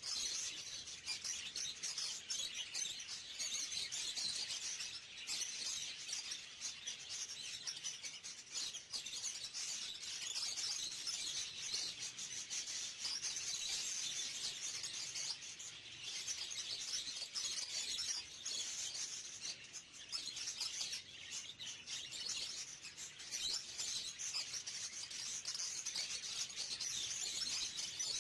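A flock of caged budgerigars chattering and chirping, many birds at once in a dense, unbroken chorus.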